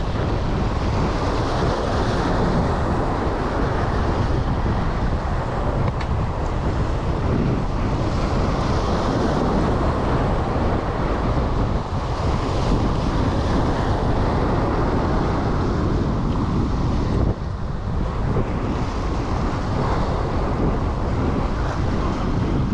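Wind buffeting the microphone over surf washing and breaking against the rock jetty, with a steady low rumble and a hiss from the wash.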